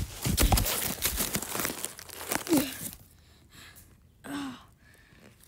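Dry leaf litter crunching and rustling against a handheld camera as it is jostled and dragged low over the forest floor, with thumps of handling on the microphone. After about three seconds it goes quieter, with two short voice sounds.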